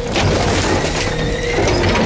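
ZR garbage truck's hopper packer compacting a wet, sloppy load of trash: crushing and crackling over a steady hydraulic whine, with wind rumbling on the microphone.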